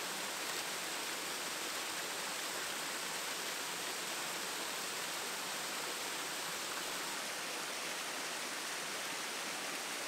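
Steady, even rush of a small woodland waterfall, its water running low and spilling over rock ledges into pools.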